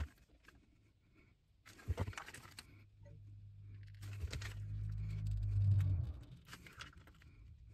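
Plastic squeeze bottle of 75W-90 gear oil crinkling in bursts as it is squeezed by hand to pump oil through a tube into a differential fill hole, about two seconds in and again from four to six seconds. A low hum builds beneath it in the middle and fades after about six seconds.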